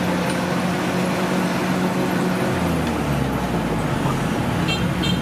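Kubota DC105X combine harvester's diesel engine running steadily; its pitch steps down about two and a half seconds in.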